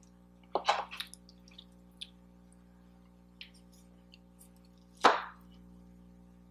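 Close-up eating sounds: short taps, clicks and mouth noises of someone eating a meatloaf and mashed-potato dinner, with a quick cluster just under a second in and a louder single sound about five seconds in.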